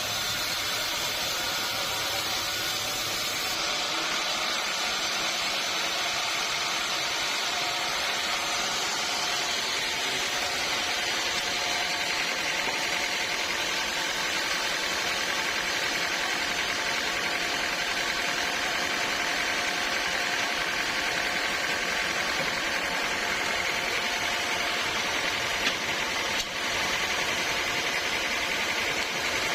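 Sawmill machinery running steadily while milling a teak log: a constant motor hum with a higher sustained whine over it, and a single knock near the end.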